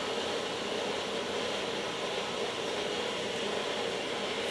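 Dayton horizontal metal-cutting bandsaw running steadily, its blade cutting through the workpiece under flood coolant, near the end of the cut.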